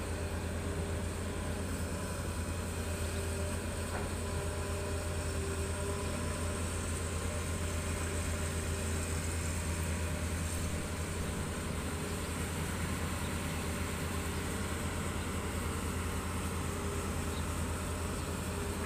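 Hitachi ZX200 excavator's diesel engine running steadily, a constant low drone with no changes in pitch or load.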